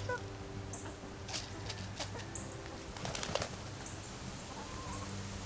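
Backyard hens clucking softly while they feed from a hand-held cup, with a few short knocks and rustles. A brief flurry comes about three seconds in, as a hen flutters up onto a lap. A steady low hum runs underneath.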